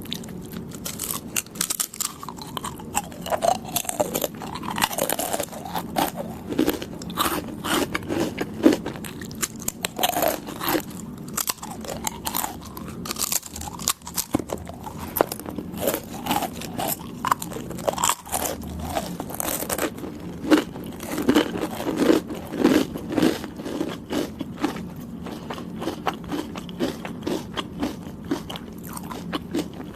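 Close-up chewing and biting of soft, chewy Thai desserts (khanom Thai), with many irregular wet mouth clicks and smacks.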